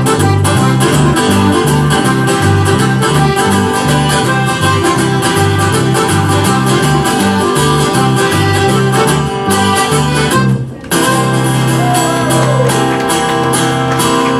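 Live Newfoundland folk tune played without vocals by a trio: violin-shaped electric bass walking from note to note, strummed acoustic guitar, and button accordion. About three-quarters of the way through the band stops for a moment, then comes back in on a held chord.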